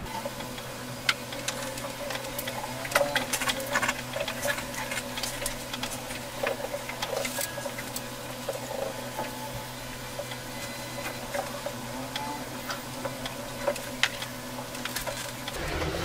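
Irregular light taps and scratches of a painting tool dabbing oil paint onto a canvas, laying on highlight touches, over a steady low hum.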